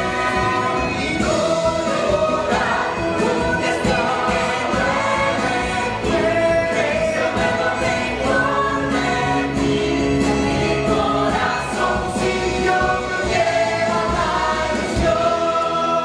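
Musical theatre cast singing together in chorus, several voices in harmony.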